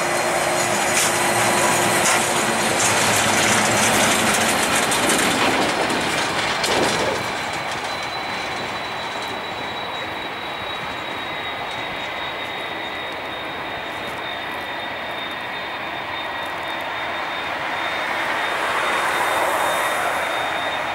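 Twin GE90 jet engines of a Boeing 777-200LR on the runway, a steady roar with a thin high whine, louder for the first several seconds and then easing as the aircraft rolls away, swelling again near the end.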